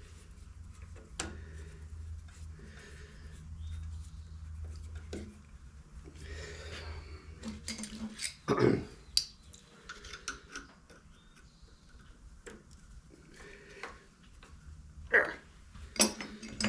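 Small lathe's electric motor humming low and steady, then switching off about seven and a half seconds in. Metal clicks and knocks of parts being handled run throughout, with a louder knock shortly after the motor stops and sharp ticks near the end.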